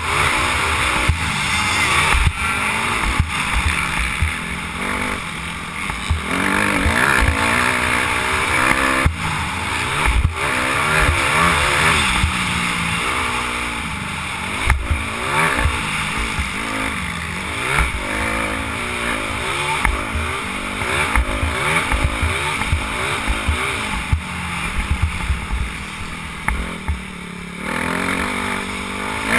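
Motocross dirt bike engine revving up and down again and again as it is ridden hard around a dirt track, heard from a helmet-mounted camera, with frequent low thumps of wind buffeting on the microphone.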